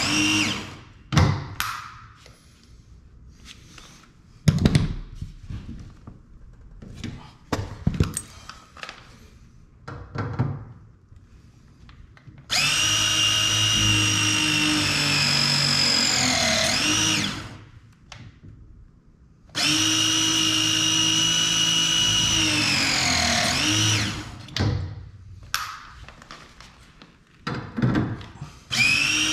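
Milwaukee cordless press tool crimping copper press fittings: a steady motor whine lasting about five seconds, its pitch falling near the end of each cycle. One cycle ends just at the start, two full cycles come at about 13 and 20 seconds in, and another begins near the end. In the gaps there are scattered clicks and knocks of the tool being handled on the pipe.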